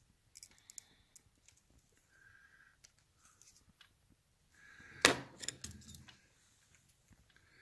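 Light metallic clicks and handling of a hand wire crimper/stripper working on small electrical wires and crimp terminals, with one sharp snap of the tool about five seconds in as a wire is stripped.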